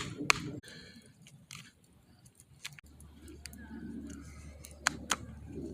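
A few scattered light metallic taps and clicks of a hammer and chisel working along a line of drilled holes in steel, two of them close together near the end; a steady low hum comes in about three seconds in.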